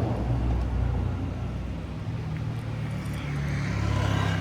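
Car engine running with a steady low hum, a rushing noise building over it near the end.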